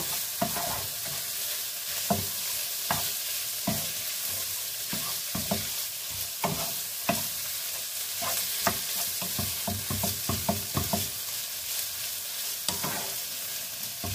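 Shredded chicken sizzling in a frying pan as a wooden spatula stirs it, with a steady hiss and irregular knocks and scrapes of the spatula against the pan.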